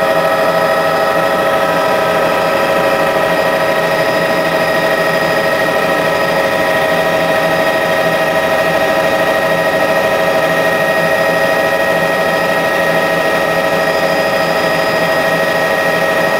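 Helicopter in level flight heard from inside the cabin: a loud, steady drone of engine and rotor noise with a whine of several fixed tones that holds the same pitch throughout.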